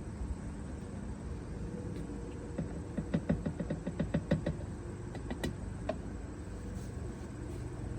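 Used engine oil being poured from the drain pan into a container, glugging in a fast run of short hollow knocks for about two seconds, followed by a few single clicks.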